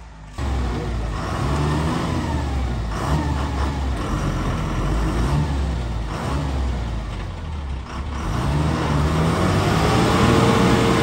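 A bus's diesel engine revving hard in repeated surges, dipping about eight seconds in and then climbing again, as the bus strains to pull its wheels out of deep mud.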